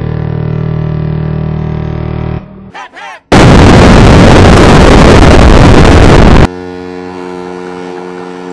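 Deliberately distorted cartoon soundtrack edit: a loud droning held tone for about two and a half seconds and a brief snatch of voice. Then about three seconds of extremely loud, overdriven noise blast that cuts off suddenly, followed by a quieter steady held tone.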